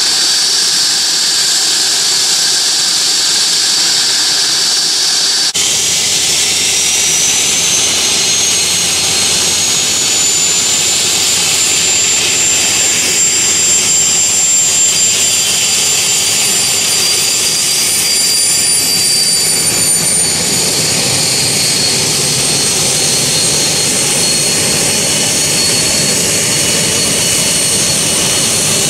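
Cessna Citation II's twin Pratt & Whitney JT15D turbofans running at taxi power: a loud, steady jet roar with a high whistling whine. The whine rises a little between about six and ten seconds in and falls slightly around twenty seconds.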